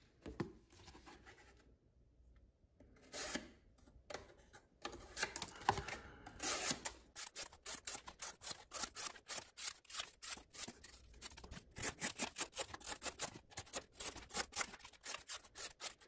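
Cardboard being sliced into thin strips with a folding knife's plain edge (WE Knives Upshot, CPM 20CV blade), the sharp factory edge cutting cleanly. A few rustles of the cardboard being handled come first, then from about seven seconds in a quick, even run of slicing strokes, about four a second.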